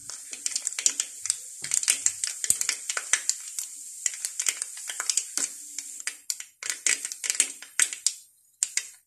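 Mustard seeds and urad dal spluttering in hot oil in a steel kadai: a dense, rapid crackle of sharp pops that thins out near the end.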